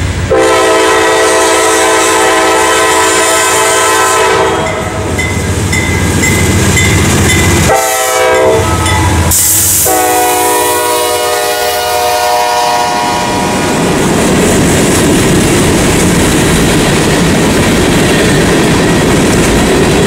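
CSX freight locomotive's air horn sounding three blasts (long, short, long) as it passes close by, followed by the steady rumble and clatter of freight cars rolling over the rails.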